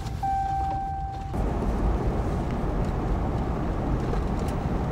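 A steady high electronic warning tone in the vehicle cabin for about the first second, then the rumble and hiss of a vehicle driving on a gravel road: tyre and road noise.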